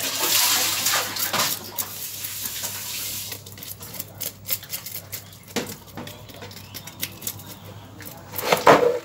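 Knife scaling a small tilapia on a wooden chopping block: a continuous hissing scrape for about the first three seconds, then scattered short scrapes and ticks of the blade on the scales, with a louder knock near the end.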